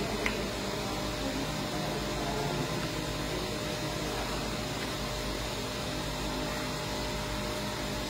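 Steady mechanical hum and whir of room machinery, unchanging throughout, with one faint click a fraction of a second in.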